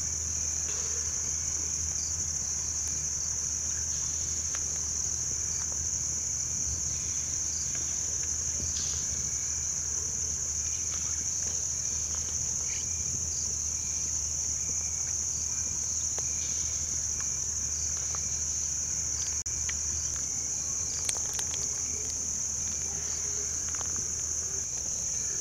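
Crickets chirring in one steady, unbroken high-pitched drone, over a faint low hum. Faint, scattered knocks come from a wooden spoon stirring soup in a clay pot.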